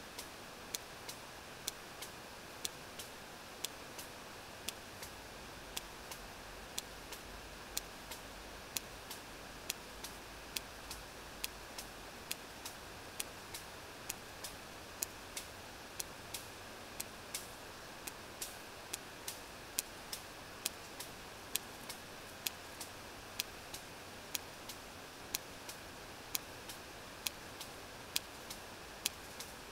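Sperm whale echolocation clicks recorded underwater by a hydrophone during a deep foraging dive: sharp, evenly spaced clicks, roughly three every two seconds, over a steady hiss of sea noise.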